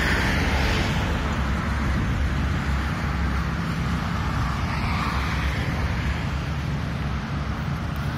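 Road traffic: cars passing along the road, swelling as one goes by about five seconds in, over steady wind rumble on the microphone.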